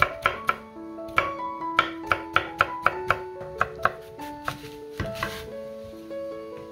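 Chef's knife chopping a cucumber into thin strips on a wooden cutting board: quick, sharp knocks of the blade on the board, two to three a second. About five seconds in, a longer scraping cut as the knife goes through an apple.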